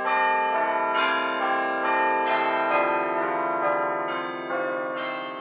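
Bell-like chimes playing a run of ringing notes, a new note struck about every half second and each left to ring over the next, fading gradually toward the end.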